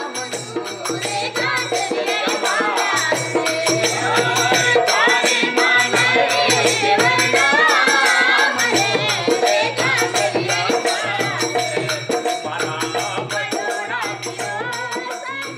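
Indian folk music with a fast shaken-rattle rhythm under a wavering melody, fading out near the end.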